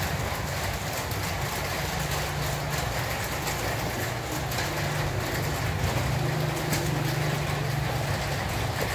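Steady low mechanical hum over a constant hiss, with a few faint clicks.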